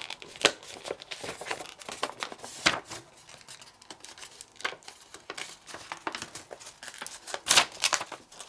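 Printer paper being folded by hand: irregular crinkling and rustling with sharp crackles as layered creases are pressed in, the loudest a little under three seconds in and again near the end.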